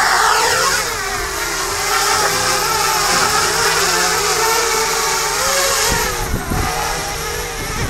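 Parrot Bebop quadcopter's electric motors and propellers whining in flight. The pitch falls at the start, then wavers up and down. The owner suspects the motors or motor cages are twisted from crashes.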